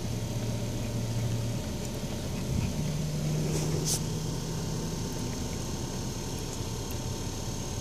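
Automatic car wash heard from inside the car's cabin: steady spray and machinery noise against the car, with a low motor hum that changes pitch about two and a half seconds in.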